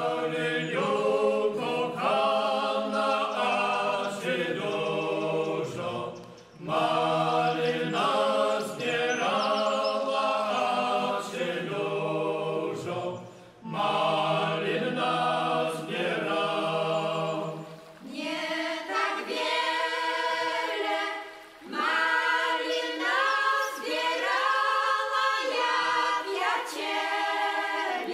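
Unaccompanied Polish folk singing by a small group in several voices, in long phrases with short breaks between them. From about eighteen seconds in, women's voices sing alone.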